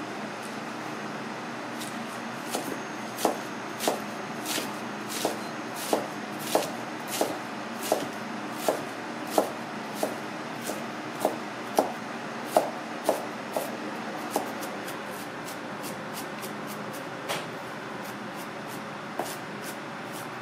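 Chef's knife chopping cabbage on a plastic cutting board: sharp knocks of the blade on the board, about three every two seconds, starting a couple of seconds in and stopping after about twelve seconds, then two more single knocks. Underneath runs a steady background hum.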